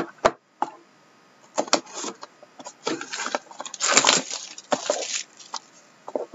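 A stiff white cardboard trading-card box being handled and opened on a table: scraping, rubbing and rustling of the cardboard, with sharp clicks and knocks. It is busiest and loudest about three to five seconds in.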